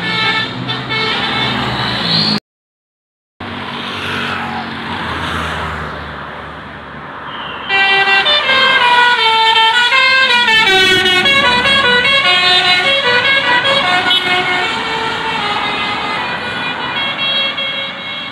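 Tour bus's Basuri 'telolet' multi-trumpet musical air horn playing a quick melody of stepping and sliding tones. It comes in loud about eight seconds in and runs most of the rest. Before it there is a brief dropout to silence, then a stretch of vehicle noise.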